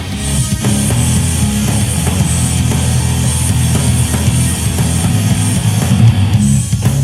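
Rock music with distorted electric guitar and a heavy, steady bass line, played back through a portable Bluetooth speaker.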